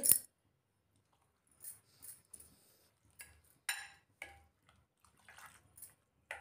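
A steel spoon stirring a wet batter in a glass bowl: faint, irregular scrapes, squelches and light clinks against the glass, starting about a second and a half in.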